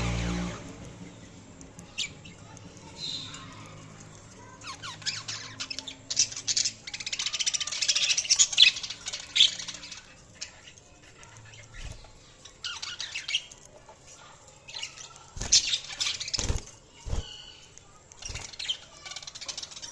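Budgerigars chirping and chattering in quick high bursts, busiest in two spells. A few short knocks are mixed in.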